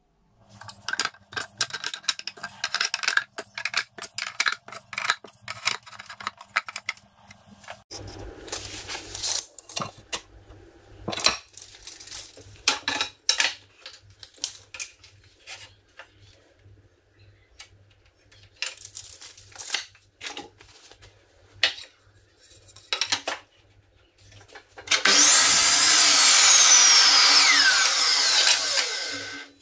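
A run of light clicks and knocks as a timber board is handled and measured with a tape measure. Near the end a Ryobi sliding compound mitre saw runs for about four seconds, cutting a tongue-and-groove board. This is the loudest sound, and its whine falls in pitch before stopping suddenly.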